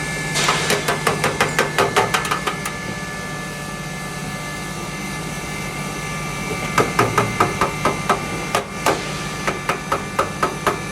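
Repeated hammer blows: a fast run of about a dozen strikes, then after a pause another run of quick strikes near the end, over the steady hum of a running machine.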